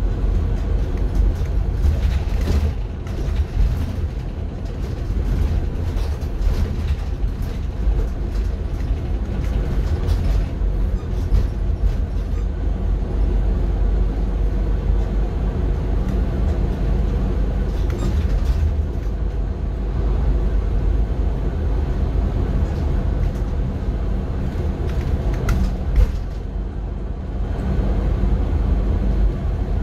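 City bus in motion, heard from inside the cabin: a steady low engine and road rumble with a few brief rattles and knocks.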